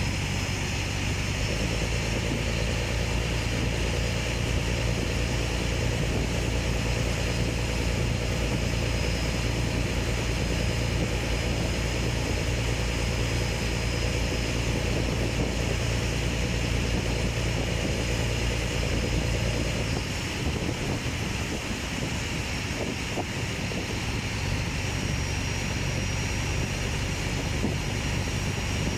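Steady engine drone of a small motorboat under way, with water rushing along its hull. About two-thirds of the way through, the deep part of the engine note drops away and the drone eases.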